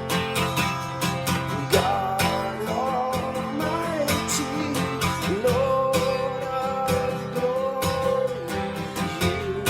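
Music on strummed acoustic guitar, with a melody line sliding over the steady strumming from about two seconds in.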